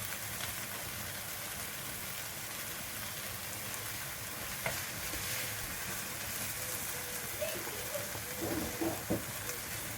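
Hot gravy sauce sizzling steadily in the pot while it is spooned into a bowl, with a spoon knocking once about halfway through and a few times near the end.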